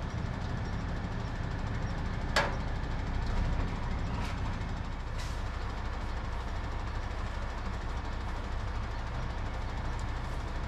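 Heavy truck's diesel engine idling steadily as a low rumble, with a sharp metallic knock about two seconds in and a few lighter clicks later.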